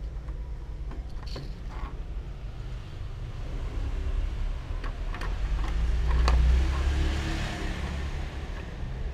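A few light clicks as a kitten bats a plastic pen on a wooden desk, over a steady low rumble that swells and then fades about six to seven seconds in.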